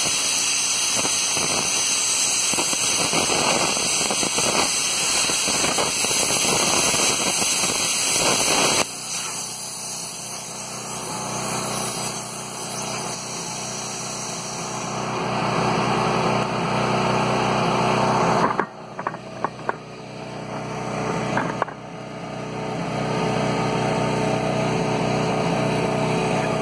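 Plasma cutter torch hissing and crackling as it cuts through a steel I-beam at 45 amps, stopping abruptly about nine seconds in. After that a portable generator runs steadily, with a few clicks partway through.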